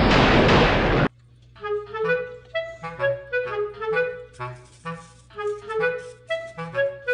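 A loud burst of noise cuts off suddenly about a second in. It is followed by background music: a bouncy melody in short notes over a low bass line.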